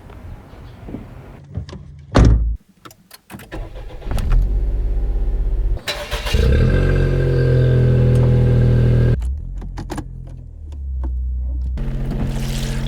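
Daihatsu Copen: a car door shuts with a thump about two seconds in, then the engine starts, runs at higher revs for a few seconds, and settles to a steady idle.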